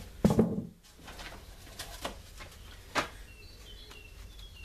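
A bird chirping: a run of short, high, slightly falling notes in the second half. Before it come a dull knock about a quarter second in and a few sharp clicks from plastic plant pots being handled.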